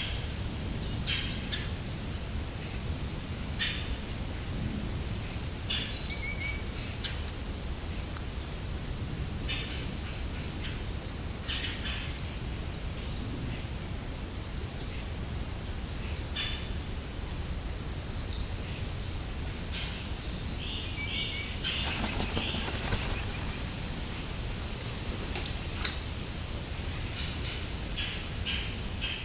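Swamp ambience: a steady high-pitched hum with many short bird chirps over it, two louder rising swells about six and eighteen seconds in, and a burst of flapping wingbeats about twenty-two seconds in.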